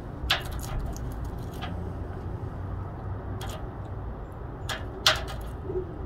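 A tame jackdaw pecking at a peanut: about five irregular sharp taps of its beak, the loudest near the end, over a steady low rumble.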